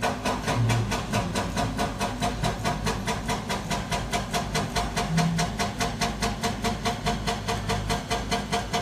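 Caterpillar excavator travelling on its tracks: an even, rapid clanking rhythm of about four to five beats a second, with a pulsing squeal, over the steady running of its diesel engine.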